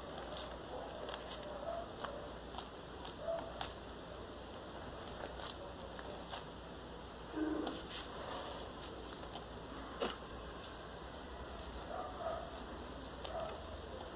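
Foam slime packed with styrofoam beads being squished and pressed by hand, giving soft irregular crackles and pops with the odd wet squish.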